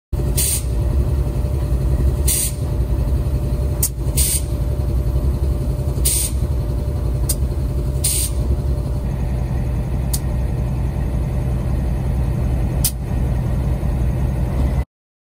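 A diesel locomotive standing with its engine running as a steady low rumble. Short, sharp air hisses come about every two seconds for the first eight seconds or so, with a few faint clicks. The sound cuts off suddenly near the end.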